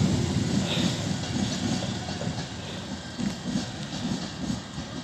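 An LNER Class 91 locomotive and its coaches rolling away, the wheels clicking over rail joints in a regular rhythm as the rumble fades.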